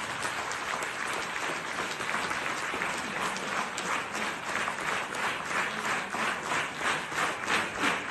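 Audience applauding. About halfway in, the applause falls into rhythmic clapping in unison, about two or three claps a second, which grows more marked towards the end.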